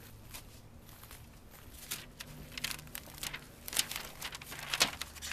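A paper sheet being handled, giving dry crinkling rustles, sparse at first and then frequent from about two seconds in.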